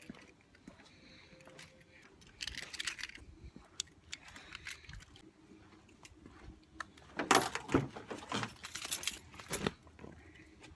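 A bunch of keys jangling in short bursts: once briefly about two seconds in, then longer and louder from about seven to almost ten seconds in.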